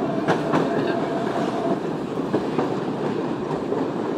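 AES11 railcar running over the rails, heard from on board: a steady rumble of wheels on track, with two sharp clicks in the first second and a faint steady tone that fades out about two seconds in.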